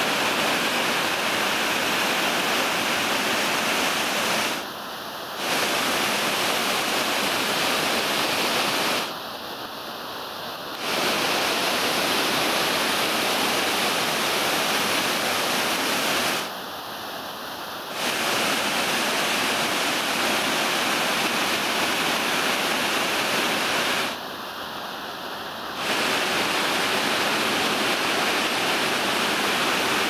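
Waterfall rushing steadily as white water cascades through a narrow rocky gorge. The rush drops and thins for a second or two four times.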